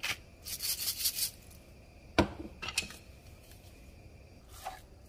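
Pepper mill grinding black pepper in a short run of quick grating twists, then one sharp knock about two seconds in and a couple of light clicks.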